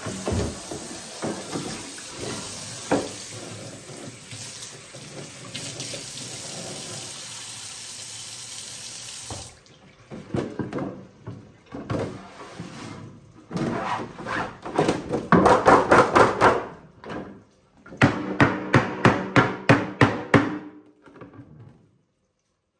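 Kitchen tap running into a stainless-steel sink while a grey plastic board is washed under it, with scrubbing strokes through the water. The water cuts off about nine seconds in. Then comes the sound of the wet board being handled over the sink, ending in a quick run of about ten sharp slaps, about four a second.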